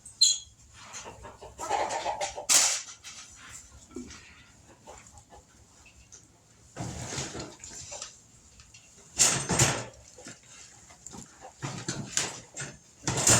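Hens squawking and clucking in irregular bursts while being handled and moved, with scuffling and rustling noises between the calls.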